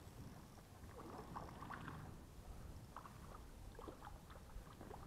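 Faint water splashing and scattered light ticks as a small hooked perch is reeled to the surface on a light spinning rod.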